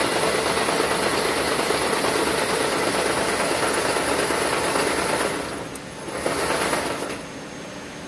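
Wire harness braiding machine running with a loud, dense, steady mechanical noise. It drops away about five seconds in, runs again for about a second, then stops about seven seconds in, leaving a low background hum.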